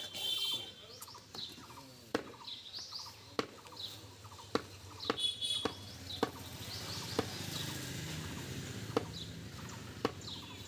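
A cleaver chopping beef on a wooden log block: a series of sharp chops, roughly one every second, spaced more widely in the second half. Birds chirp throughout, and a low rumble rises in the second half.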